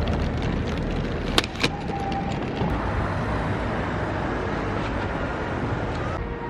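Steady rumble of a road vehicle's engine and road noise, with two sharp clicks about a second and a half in.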